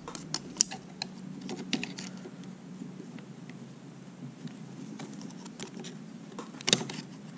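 Screwdriver tip and fingers prying at the plastic retaining tabs of a Ford E-450 steering column's clock spring: scattered small plastic clicks and scrapes, with the sharpest click a little before the end.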